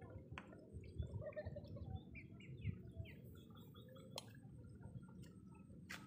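Small birds chirping, many short quick calls scattered throughout, over a low rumble with a few soft thumps and a couple of sharp clicks.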